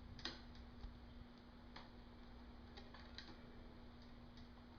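Faint, scattered light metallic clicks of a bicycle chain's links and its Wippermann Connex quick link being handled as the chain is joined back together, over a faint steady hum.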